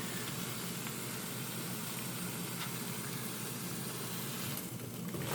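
Marinated chicken breast sizzling steadily on a George Foreman contact grill with the lid closed, a constant hiss that thins briefly near the end.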